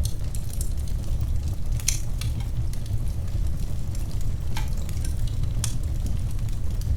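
Wood fire crackling in a fireplace: a steady low rumble of flames with sharp pops and crackles scattered through, a few strong ones about two seconds in and again toward the end.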